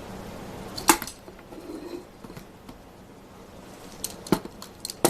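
Metal woodworking clamps clinking and knocking as they are handled and set: a sharp clank about a second in, two more near the end, and lighter ticks between.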